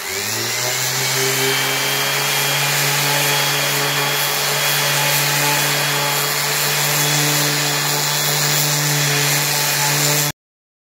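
Electric random orbit sander with coarse 80-grit paper spinning up, then running steadily as it sands a rough-sawn cherry slab. The sound cuts off suddenly near the end.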